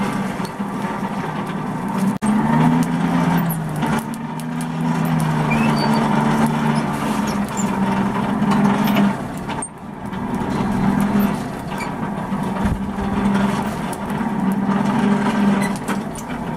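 Coal forge fire burning hard under a forced-air blast: a steady rushing noise with a low, even hum from the air blower, and a few small ticks and crackles.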